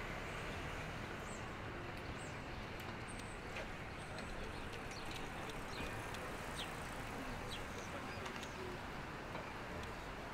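Busy outdoor street ambience: a steady wash of crowd and traffic noise, with short high bird chirps scattered throughout and a few faint clicks.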